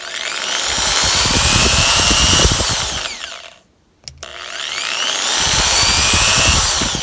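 Black+Decker corded electric drill run at reduced speed through a 45 µF capacitor wired in series, switched on twice. Each time it whines up to speed, runs for about two seconds, then winds down with a falling whine as the trigger is released. There is a short pause between the two runs.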